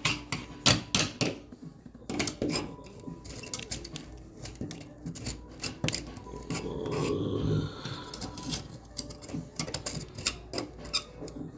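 Irregular clicks, taps and scraping from cleaning around a wall outlet box by hand, with a longer rubbing or scraping stretch about two-thirds of the way through.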